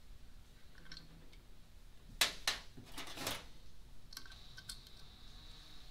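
Light metallic clicks and taps of a small hand tool working the last nut and washer off an aluminium transmission case, with a few sharper clicks about two to three seconds in.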